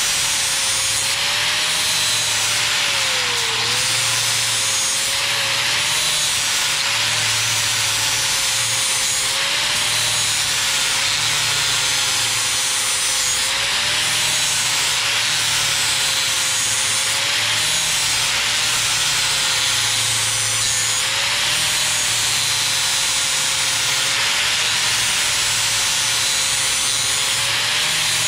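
Corded angle grinder with a 36-grit flap disc grinding the edge of a steel lawn mower blade held in a sharpening jig. The motor runs steadily with a grinding hiss, its pitch dipping slightly now and then as the disc is pressed into the steel.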